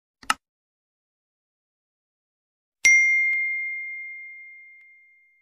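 Subscribe-button animation sound effects: a short mouse click, then, about three seconds in, a single bright bell ding that rings on and fades away over about two and a half seconds.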